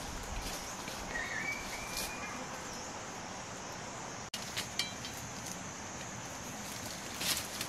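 Outdoor ambience: a steady high insect drone with a short bird call about a second in, and a few soft clicks and rustles later on.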